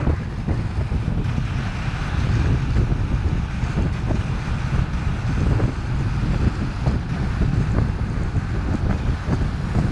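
Wind buffeting an action camera's microphone with a heavy rumble, over a steady hiss of the snowkiter gliding across hard, crusted snow, with scattered small crackles.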